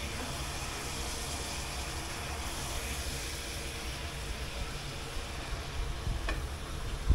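Steady rushing hiss of lamb curry cooking in a large aluminium pot on a gas stove as it is stirred with a wooden spoon, with a single light knock about six seconds in.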